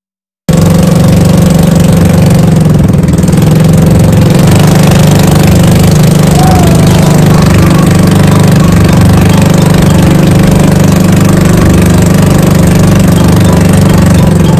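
Engine of a motorised outrigger boat running steadily under way, a loud, even low drone. It starts suddenly about half a second in.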